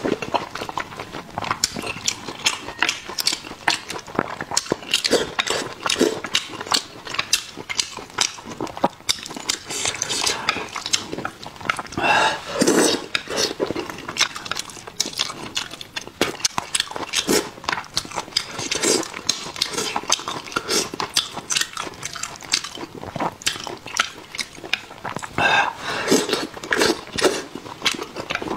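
Close-miked mouth sounds of eating saucy braised fish: rapid wet chewing, lip smacks and slurps, with an occasional click of chopsticks.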